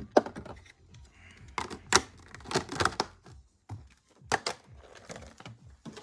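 Clear rigid plastic packaging tray being handled, giving irregular clusters of sharp clicks and crackles.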